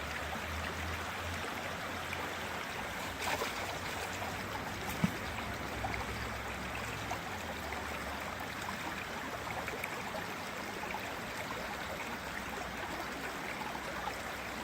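Steady rush of a small stream's running water, with a faint knock a little over three seconds in and a single sharp click about five seconds in.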